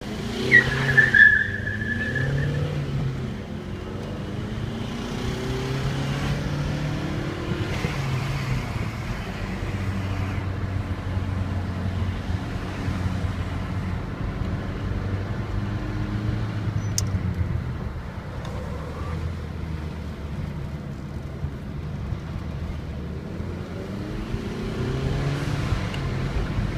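Remapped Peugeot 406 2.2 HDi four-cylinder turbodiesel heard from inside the cabin, accelerating hard through the gears, its pitch rising and dropping with each shift. A brief high squeal about half a second in is the loudest moment.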